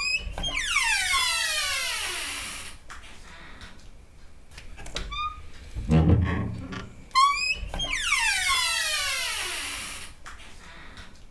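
Old wooden door's hinges creaking, twice: each time a short rising squeak, then a long creak that falls in pitch over about two seconds. A low thump comes about six seconds in, just before the second creak.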